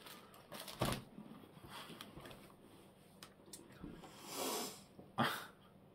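Quiet eating sounds as a vanilla cream snack is tasted: a few small mouth clicks, a soft breathy swell about four seconds in, and a short sharper sound about five seconds in.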